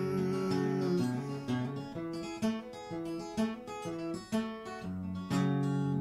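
Acoustic guitar fingerpicked, an instrumental passage of plucked notes and chords ringing on.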